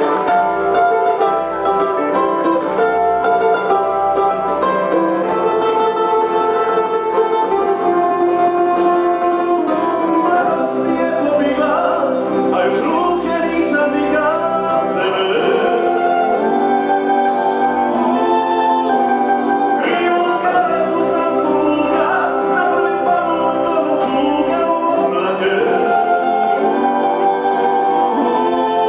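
Klapa male vocal ensemble singing in close harmony, accompanied by strummed and plucked acoustic guitars and mandolin. The music runs steadily without pause.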